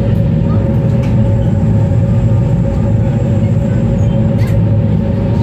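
Ocean Jet fast ferry's engines droning steadily at speed, with a constant steady hum over the rush of the churning wake.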